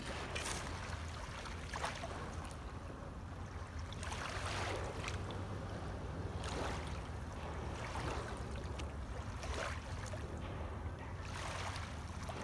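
Small waves lapping and washing on a pebble shore, a soft swell every couple of seconds, over a steady low rumble.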